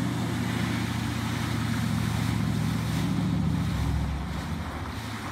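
Riddle Marine RMX 18 jet boat running toward shore, its engine humming steadily over the rush of its wash; about four seconds in the engine drops off as the boat throttles back and slows.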